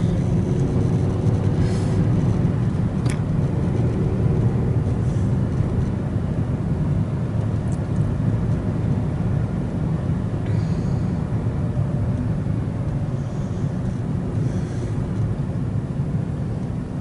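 Steady low rumble of a car heard from inside the cabin, with a single sharp click about three seconds in.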